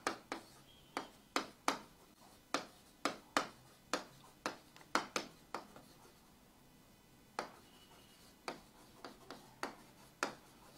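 Stylus tapping and scratching on the screen of an interactive display panel while writing, a run of sharp taps about two a second that pauses for about a second and a half past the middle.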